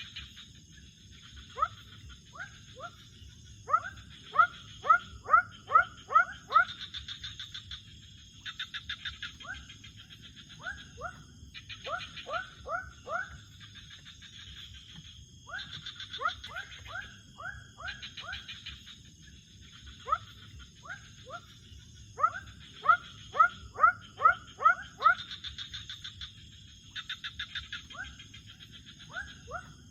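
Night-time animal chorus: loud runs of five or six short, falling calls, about three a second, recurring every few seconds. Between them come patches of fast trilling and a steady high insect whine.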